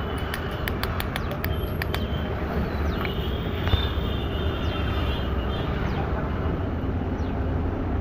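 Small hammer tapping a metal key blank on a steel block: a quick run of light metal-on-metal taps, about four or five a second, ending about two seconds in. A steady low rumble runs underneath throughout.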